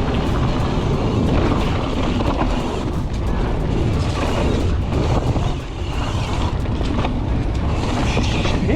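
Wind buffeting the microphone over the tyre and trail noise of a Santa Cruz Megatower mountain bike riding down a trail, a steady rumble with small rattles and clicks.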